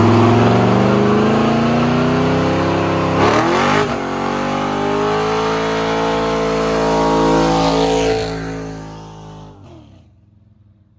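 Chevrolet squarebody pickup's engine revving hard during a burnout, its rear tyres spinning. The pitch climbs for about three seconds, dips briefly, and holds high; the engine then falls away and fades out as the truck pulls off.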